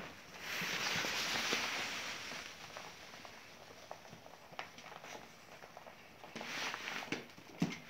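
Rabbits feeding together from a bowl of grain: rustling of the grain, with scattered small clicks and taps. The rustling comes in two spells, near the start and again near the end, and a sharper tap comes just before the end.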